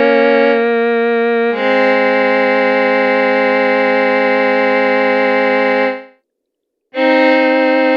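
Sustained synthesizer chords from the Roland Verselab MV-1's ZEN-Core sound engine, held steady and changing a couple of times early on. The held chord fades out about six seconds in, and after a brief silence a new chord starts.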